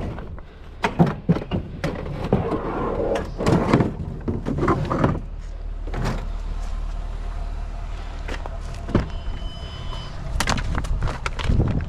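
A string of irregular knocks, clanks and thuds from junk being handled and moved, over a steady low rumble of an idling vehicle.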